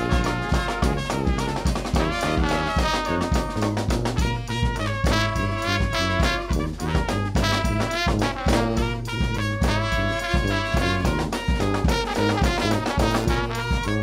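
A brass band playing: sousaphone bass line and a steady bass-drum and snare beat under trumpet, trombone, saxophone and flute.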